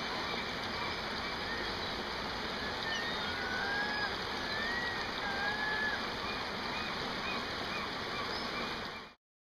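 Shallow river water rushing over a riffle, with gulls giving several thin, drawn-out, arching calls. The sound cuts off abruptly near the end.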